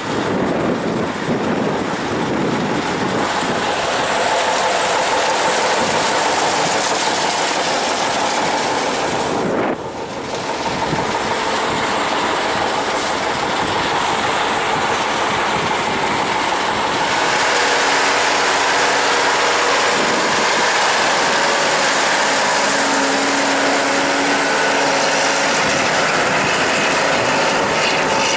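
T-150K wheeled tractor's diesel engine running steadily under load as it pulls a five-bottom mouldboard plough through the soil, with mechanical clatter from the tractor and plough; the sound drops briefly about ten seconds in.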